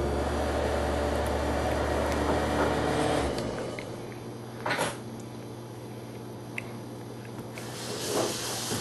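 A household appliance's motor hums steadily and shuts off abruptly about three seconds in, leaving a fainter steady hum; a short knock follows about a second later.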